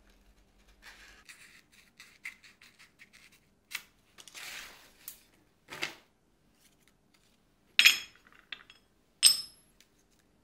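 Paper rustling and being cut with metal snips, a few short snips in a row. Near the end come two sharp metallic clanks with a brief ring, steel against the anvil, as the snips and steel bar stock are handled on it.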